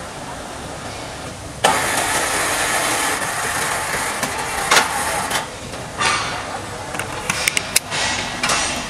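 QT4-18 automatic concrete block-making machine working through its cycle: a loud, steady noisy rush sets in suddenly about a second and a half in and runs for about four seconds, followed near the end by a quick run of sharp metallic knocks.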